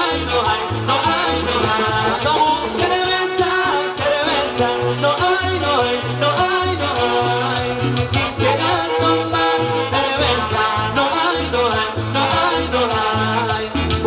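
Live band playing dance music through the stage loudspeakers: a singing voice over a bass line pulsing steadily on the beat.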